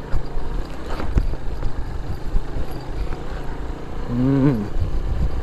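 Motorcycle engine running as the bike climbs a rocky dirt track, with knocks and rattles from riding over the stones. A short vocal sound comes about four seconds in.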